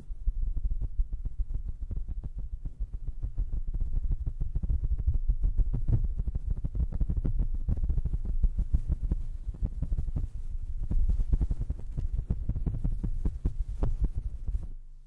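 Two fluffy fur pom-poms rubbed and squeezed directly against a condenser microphone's grille. The result is a steady, close, low rumble with a dense fine crackle of fibres, which stops suddenly near the end.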